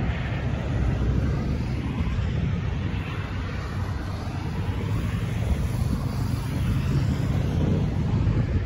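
Steady rumble of distant road traffic, with wind buffeting the microphone.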